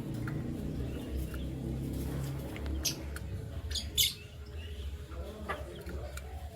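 Pet canaries giving a few short, sharp chirps, the loudest about four seconds in, over a steady low hum.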